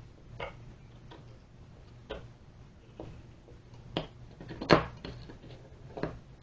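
Flathead screwdriver blade of an axe multitool clicking against a screw head as it is turned and reset by hand: a handful of separate sharp metal clicks every second or two, the loudest about two-thirds of the way through.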